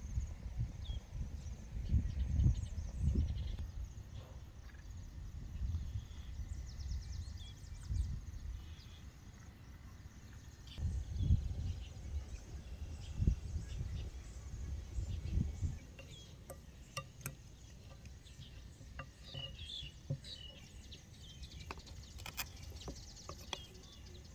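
Outdoor ambience: an uneven low rumble on the microphone for most of the first two-thirds, then birds chirping and a few light clinks of a metal spoon and fork on a plate near the end.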